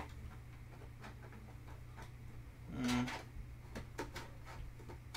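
Scattered light clicks and taps of a plastic runner rack's panels being handled and fitted together, with one louder, longer sound about three seconds in.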